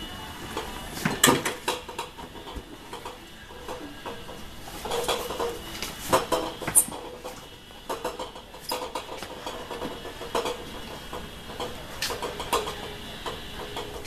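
Small two-door refrigerator being tipped and hoisted by hand: irregular knocks and clatter from its metal cabinet, the loudest about a second in.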